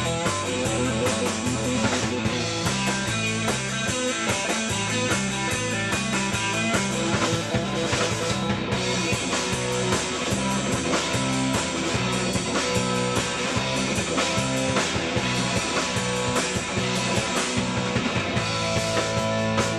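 Live band playing a guitar-led rock number, with a steady, even rhythm throughout.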